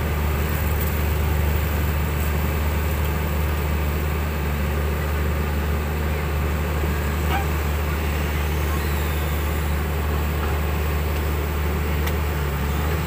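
Diesel engines of crawler excavators running steadily, a deep even drone with no revving.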